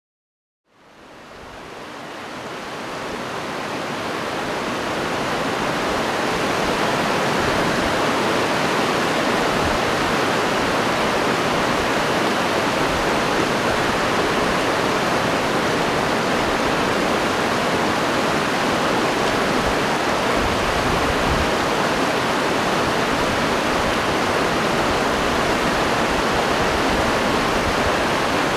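Fast, shallow mountain stream rushing over stones, a steady rush of white water. It fades up from silence, starting about a second in and reaching full level a few seconds later.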